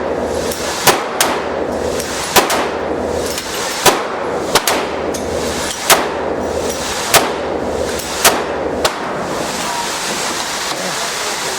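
Gunshots at an indoor shooting range: about nine sharp reports at irregular intervals over a steady background hum, stopping about nine seconds in.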